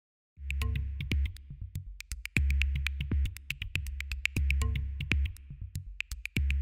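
Electronic background music with a drum-machine beat starting about half a second in: a deep bass note about every two seconds under quick, crisp clicking percussion.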